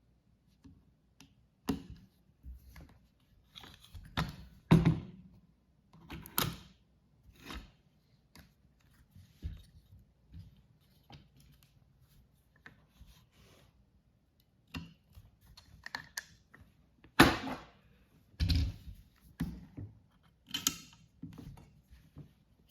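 Irregular clicks, clacks and knocks of an AR-15 and its parts being handled, with a few louder knocks, the loudest about 17 seconds in.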